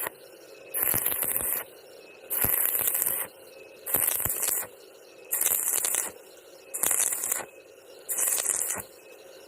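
Stick-welding arc crackling in short bursts, about one every second and a half, each lasting under a second, with quieter hiss between.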